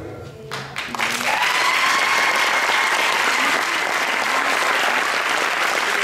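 Audience clapping and cheering, breaking out about a second in as the dance music ends and then holding steady, with a long high cheer heard above the clapping.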